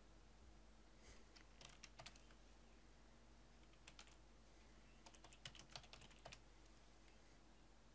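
Faint typing on a computer keyboard in two short runs of keystrokes, the first about a second in and the second from about four to six seconds in.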